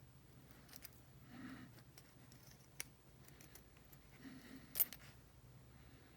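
Faint handling of small steel tool parts: a few light metallic clicks and taps as the bead-cutter bit and its holder are fitted together, the sharpest click just before five seconds in.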